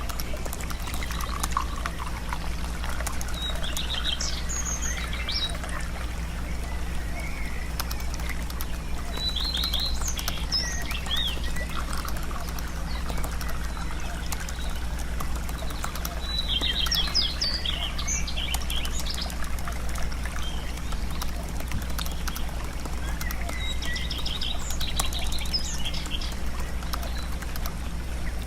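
Small birds chirping in short, high trills about four times, over a steady low hum and a continuous light patter.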